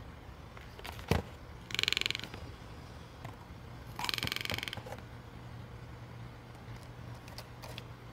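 A toucan's bill working at a cardboard box and cable: a sharp click about a second in, then two short rattling creaks, around two and four seconds in.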